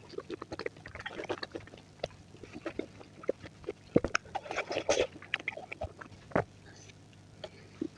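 Close-miked chewing of fresh fruit: an irregular run of quick crunches, smacks and mouth clicks.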